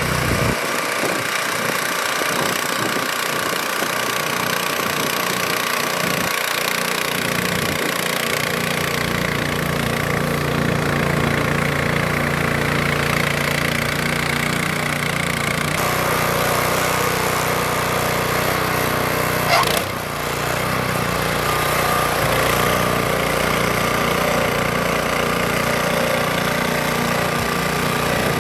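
Walk-behind petrol snow blower running steadily under load as it clears and throws snow. Its engine note shifts slightly about halfway through, and there is one sharp knock about two-thirds of the way in.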